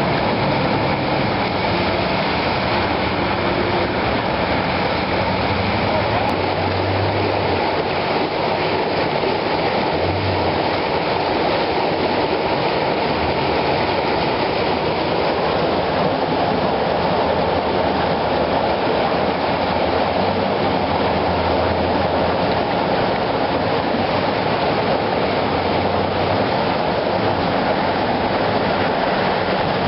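Floodwater rushing, a loud steady noise without a break.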